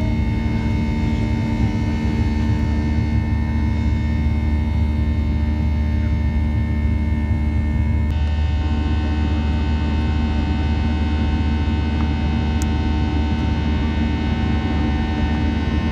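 Steady jet-engine drone and airflow noise inside the cabin of a Boeing 737-700 climbing out, heard from a window seat beside its CFM56-7B turbofan. The drone carries several steady whining tones, and the tone mix shifts abruptly about eight seconds in.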